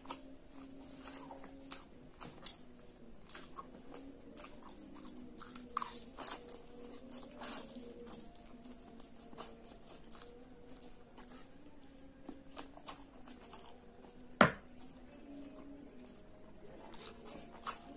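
Close-up chewing of fried instant noodles (Indomie Mie Goreng), with wet mouth clicks and crackles scattered throughout. A single sharp click about two-thirds through is the loudest sound, over a faint steady hum.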